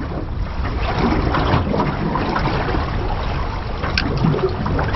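Wind buffeting the microphone and water lapping against the hull of a small drifting boat, with a single sharp click about four seconds in.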